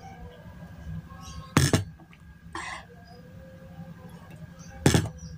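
A person gulping water from a glass, close to the microphone: two loud swallows about three seconds apart, with a softer breathy sound between them.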